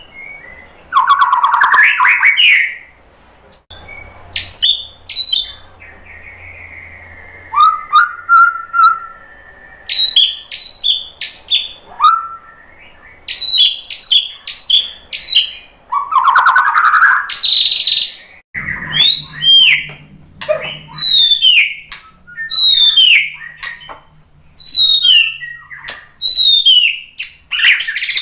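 White-rumped shama (murai batu) singing a varied song of loud whistled phrases, with harsh rasping bursts twice and one long held whistle. Near the end it repeats a sharp falling whistle about once a second.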